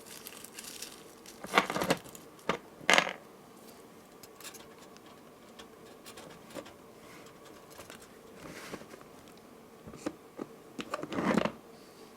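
Handling noise from a beaded necklace with metal charms being moved about: scattered light clicks and rattles, with louder bursts about a second and a half in, at about three seconds, and again near the end.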